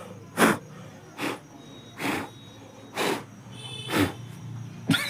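About five sharp puffs of breath blown by mouth, roughly one a second, to clear dust from the inside of a household inverter.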